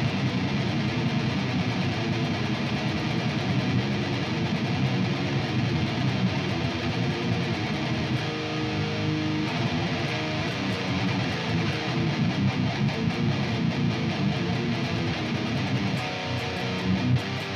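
Electric guitar being played without a break.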